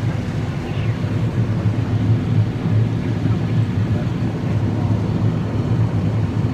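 Combine harvester running steadily while harvesting corn, heard from inside the cab: an even, low drone with no breaks.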